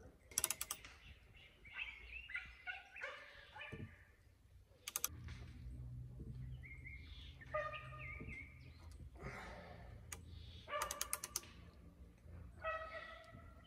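Manual hand drill cranked by hand, boring an auger bit into a green cypress beam: bursts of rapid clicking from the drill, with several short pitched sounds in between.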